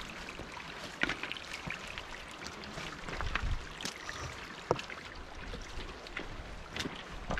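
Hiker's footsteps on a loose rocky trail, irregular clicks and scuffs of boots on stones, over a low rumble of wind on the microphone.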